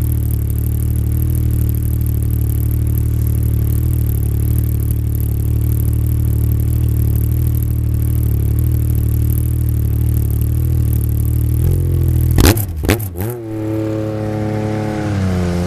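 Yamaha FX Nytro snowmobile's three-cylinder four-stroke engine idling steadily through a Super Q exhaust. About twelve seconds in there are a couple of sharp knocks, then the throttle is worked and the engine pitch rises and falls as the sled pulls away.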